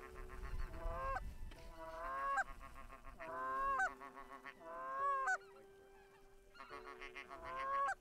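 Snow goose calls: about five high honks, each rising in pitch and breaking off short.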